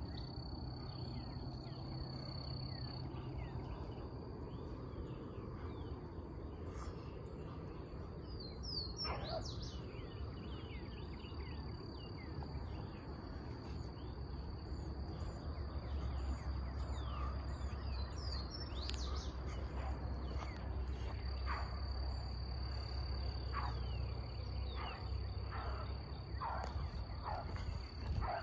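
Outdoor field ambience: a steady high-pitched insect drone that breaks off briefly a few times, with birds chirping and calling over it and a low rumble underneath.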